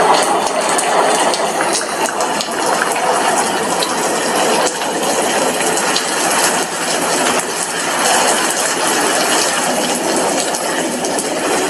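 Steady heavy rain, with many small ticks of drops hitting a glass window pane.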